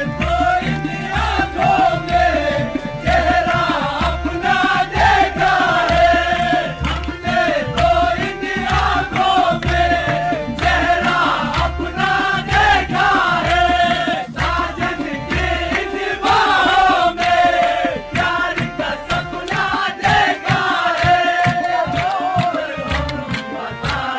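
Urdu ghazal song with a solo voice singing a winding melody over a steady low drum beat. The drum drops out about two-thirds of the way through, leaving the voice and lighter accompaniment.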